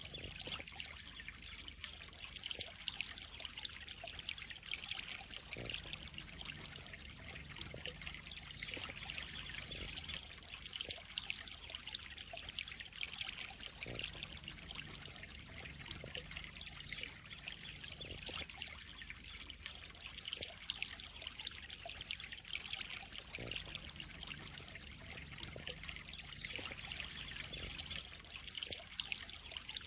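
Steady trickle of running water in a koi pond, with a few faint taps scattered through it.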